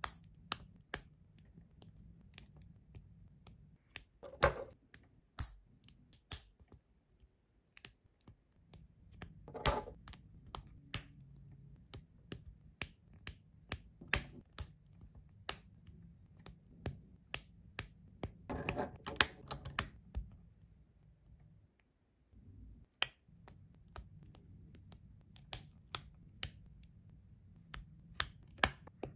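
Plastic LEGO bricks clicking as they are pressed and snapped together by hand: sharp, irregular clicks, about one or two a second, with a few brief stretches of rustling as pieces are handled.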